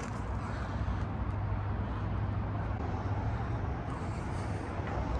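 Steady low rumble of road traffic, with a deep hum strongest through the first few seconds.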